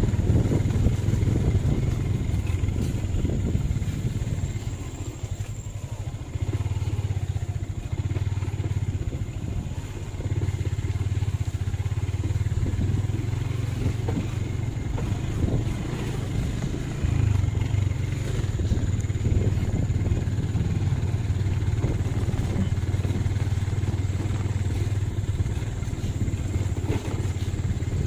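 An engine running at a steady speed with a constant low hum, easing off briefly about five seconds in.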